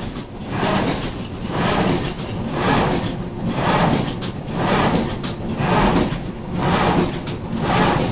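Semi-automatic die cutting and creasing machine running in a steady cycle, about one stroke a second, each stroke a rush of noise with sharp clicks.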